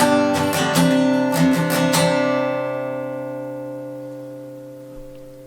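Chibson J200, a Chinese copy of the Gibson J-200 jumbo acoustic guitar, strummed unplugged: a few chord strums, then about two seconds in a last chord is left to ring and slowly fade out.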